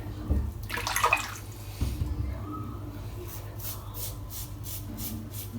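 A heavy stainless-steel safety razor is rinsed with a brief splash in the sink about a second in, with a low knock before and after. Then comes a quick run of short scraping strokes across lathered scalp stubble, several a second.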